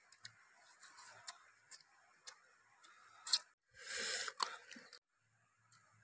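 Close eating sounds: chewing, with small sharp clicks and crunches as cooked shellfish is picked apart by hand. A louder crunch and rustle about four seconds in, cut off abruptly about a second later.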